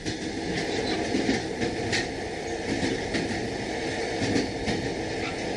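Passenger train running, heard from inside the carriage: a steady rumble of wheels on the rails, with sharp clacks every second or so as the wheels pass over rail joints.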